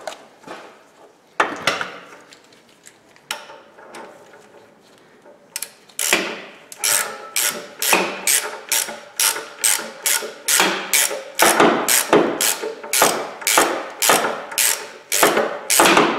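Hand ratchet on a long socket extension cranking exhaust studs into the manifold: a few scattered clicks, then from about six seconds in a steady run of ratcheting strokes, about two a second.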